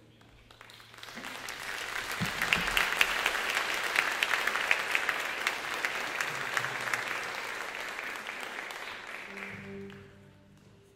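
Audience applauding: the clapping builds up about a second in, holds steady, then dies away near the end.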